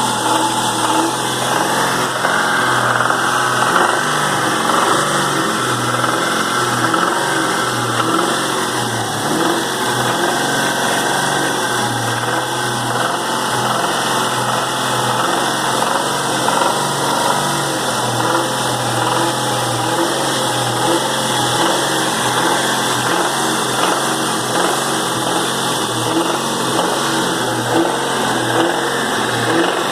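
2001 Mustang SVT Cobra's 4.6-litre four-valve DOHC V8 running steadily, with the knocking noise the owner hears from it under light load.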